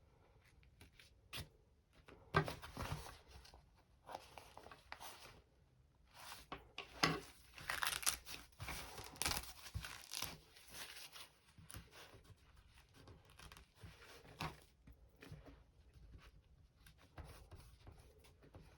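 Embroidery stabiliser being handled, torn and crinkled by hand: irregular rustling and tearing, loudest in two stretches in the first half.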